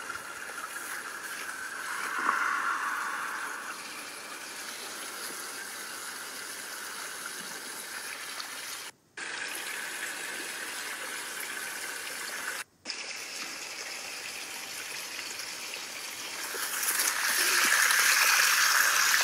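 Steady rushing of running water, cut off briefly twice and growing louder near the end.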